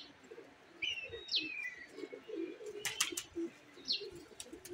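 Domestic pigeons cooing low and wavering, with a few short high chirps that fall in pitch and a couple of sharp clicks about three seconds in.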